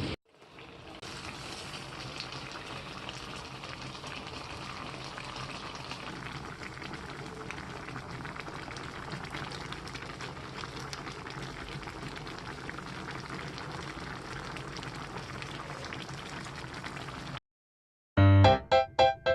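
A pot of liquid boiling steadily, a fine bubbling crackle that cuts off suddenly near the end. Loud keyboard music with an even beat starts right after.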